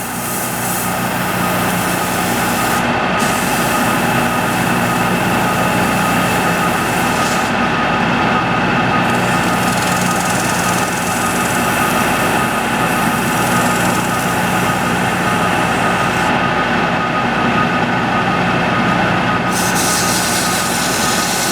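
Antique sawmill running steadily, its freshly repaired saw mandrel turning at about 570 RPM: a constant machine hum with a high hiss that drops away briefly three times.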